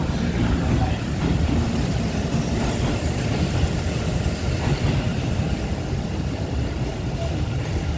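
Electric commuter trains running at a station platform: a steady rumble of wheels and traction motors as one train pulls out and a Hanshin 1000-series train rolls in alongside the platform.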